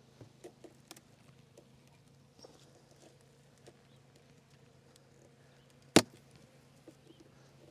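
Steady low hum of honeybees at an open hive, with scattered light clicks and one sharp knock about six seconds in.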